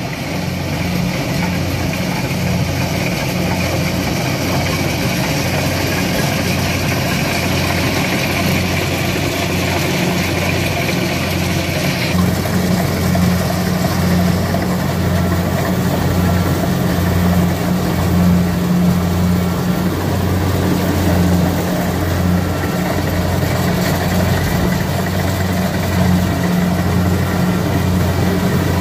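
A heavy farm machine's engine running steadily, with a higher hiss over it that stops abruptly about twelve seconds in.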